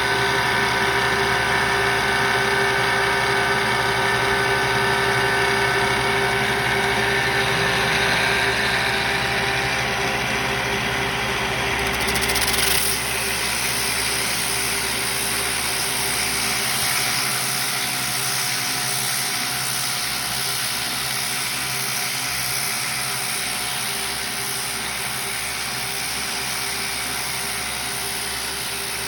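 CNC spindle driving a free-running random-orbit sanding head over aluminum: a steady machine whine with a held tone, joined about twelve seconds in by a louder high hiss.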